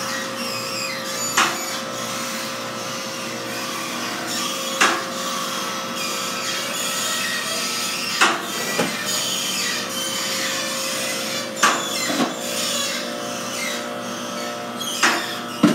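Workshop noise: a steady machine hum with a sharp knock every few seconds, about eight in all.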